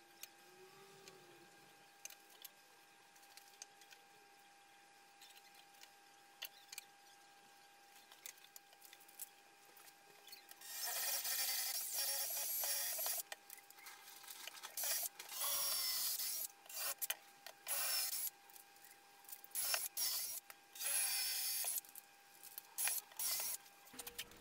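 Makita 18 V cordless drill boring holes into a thick timber block, run in a series of short bursts of a few seconds each from about ten seconds in. Before that only faint light clicks and scratches.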